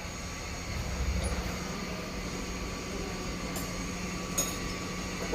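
Steady mechanical hum with a constant low drone, with two faint clicks about three and a half and four and a half seconds in.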